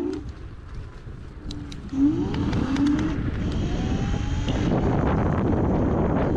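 Dualtron Thunder electric scooter picking up speed: about two seconds in, a steady rush of wind and road noise sets in on the mic, with a faint whine rising in pitch a little later.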